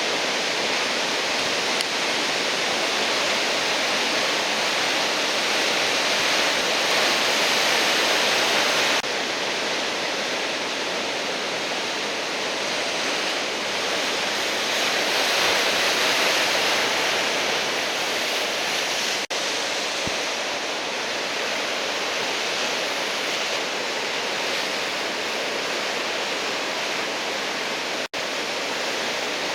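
Heavy surf from a typhoon swell, a steady wash of breaking waves with no pauses. The sound shifts abruptly about a third of the way through and drops out briefly twice later on.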